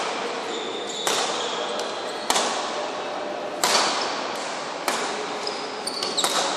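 Badminton rackets striking a shuttlecock in a rally, five sharp echoing hits about every second and a quarter.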